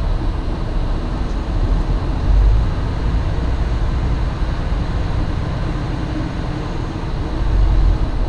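Semi truck's diesel engine and rolling noise heard from inside the cab as the truck moves slowly, a steady low rumble that swells briefly a couple of seconds in and again near the end.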